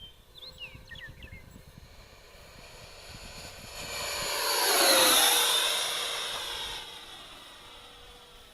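Electric ducted-fan motors of a radio-controlled Freewing F-5 jet making a low pass. The whine grows louder, peaks about five seconds in, drops in pitch as the jet goes by, then fades.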